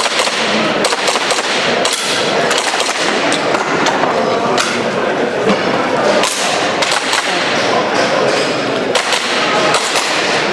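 Airsoft pistol shots fired through a practical-shooting stage: sharp pops in quick clusters with short pauses between, over steady crowd chatter in a large hall.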